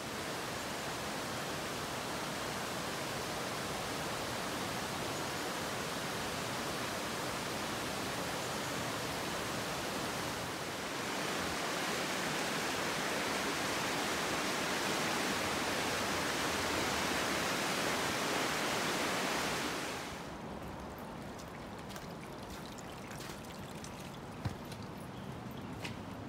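Steady rush of flowing stream water, louder from about eleven seconds in, then dropping to a quieter rush about twenty seconds in, with a few faint clicks near the end.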